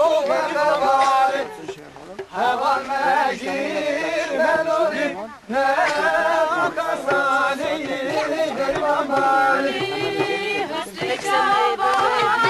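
A group of voices singing a folk dance song together, with short breaks between lines about two and five seconds in.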